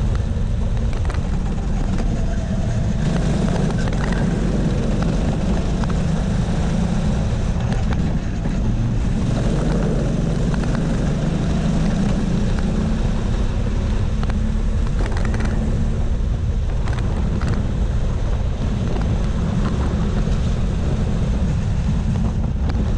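Go-kart engine running hard at racing speed, heard from on board the kart, at a steady level throughout.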